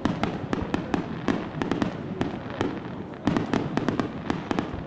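Aerial fireworks shells bursting in rapid, irregular succession, about four sharp bangs a second over a continuous crackling haze.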